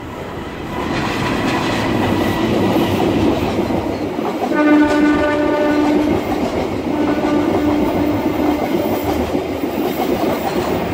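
Passenger train hauled by a CC 201 diesel locomotive passing close by: a steady rumble of the coaches on the rails, building over the first second or two. The locomotive's horn sounds twice, each blast about a second and a half long, the first about four and a half seconds in and the second about seven seconds in.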